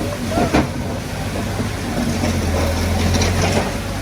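Heavy diesel earthmoving engine running steadily at a low, even note, with a sharp knock about half a second in.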